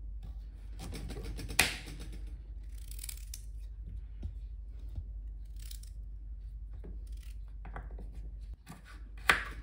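Small kitchen knife slicing through a raw carrot on a wooden cutting board: crisp cutting strokes, with the blade knocking sharply on the board now and then, the loudest knock near the end. A steady low hum lies underneath.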